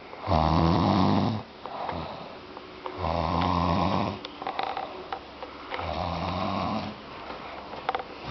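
A woman, passed out drunk, snoring: three long snores at steady intervals of a little under three seconds, with quieter breaths between them. A couple of sharp clicks come near the end.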